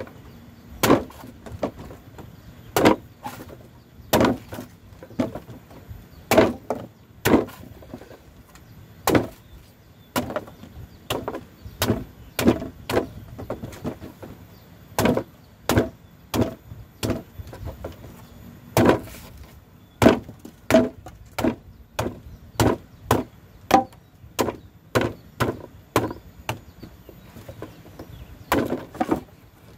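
Machete chopping into the husk of a young green coconut: a long run of sharp, irregular cuts, roughly one or two strokes a second.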